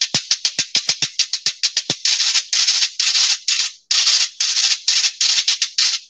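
Guacharaca, a ridged corozo-cane scraper, scraped with a fork (trinche) in the vallenato merengue rhythm: a fast run of short rasping strokes, with longer scrapes mixed in from about two seconds in.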